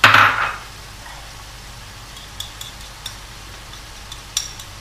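Ground beef frying in a pan, a steady low sizzle, with a brief louder hiss at the very start. A few light clicks from a spoon against the pan or a small dish come in the second half.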